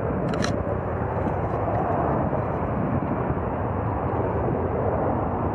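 Jet airliner engines making a steady rushing noise, with a short sharp click about half a second in.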